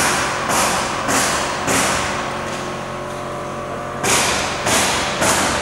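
Steady hum of the TE-XS5030A X-ray baggage scanner running its detector calibration, under a series of sharp thumps with hissing tails, about two a second. The thumps pause for about two seconds midway, then resume.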